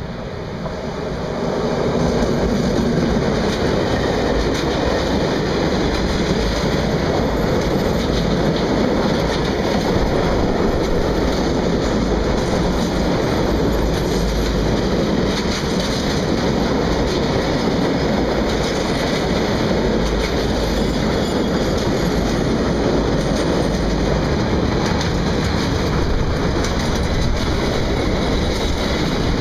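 A diesel locomotive passes close by, its sound swelling over the first couple of seconds. Then a long train of loaded tank wagons rolls steadily past with a continuous wheel-on-rail rumble and scattered clicking as the wheels cross rail joints.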